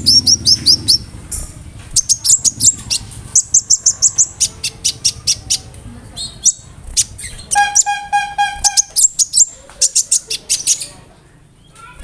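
Brown-throated sunbird (konin) singing vigorously: rapid volleys of sharp, high, falling notes, with a buzzy, pulsed phrase about two-thirds of the way through, typical of the mimicked fill phrases in its song. It falls quiet shortly before the end.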